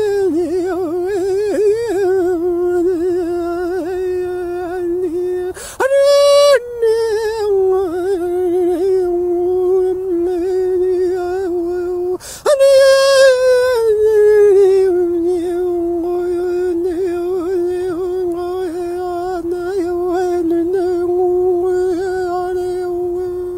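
A man's voice chanting a long, wordless held note at a steady pitch, with a slowly changing vowel sound. It breaks twice for a breath and jumps to a higher note, briefly about six seconds in, then again about twelve seconds in, sliding back down to the low drone.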